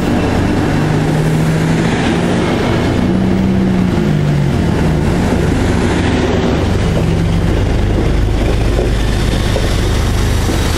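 MBTA commuter rail train passing close by: bilevel coaches rolling past with a steady wheel-on-rail rumble and some shifting low tones. Toward the end the train's HSP46 diesel locomotive comes alongside, and its deep engine rumble grows.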